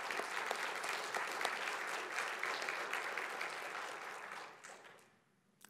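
Congregation applauding, a dense patter of many hands clapping that dies away about four and a half seconds in.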